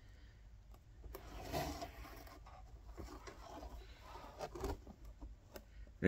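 Faint handling noise as the metal stroke assembly is turned over in the hand: scattered small clicks and light scrapes and rubs, the loudest scrape about a second and a half in.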